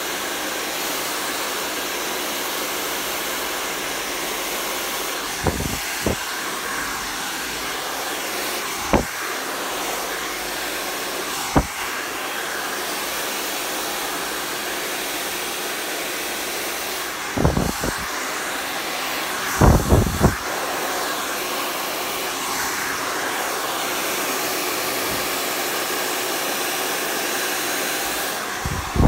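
Hair dryer blowing steadily, with a few short, low knocks scattered through, the loudest a cluster about twenty seconds in.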